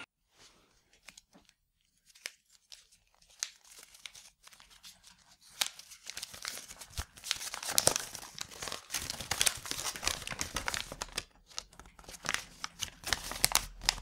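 A crumpled sheet of paper being unfolded and smoothed out by hand, crinkling and crackling. A few faint rustles at first, then steady crinkling from about five seconds in.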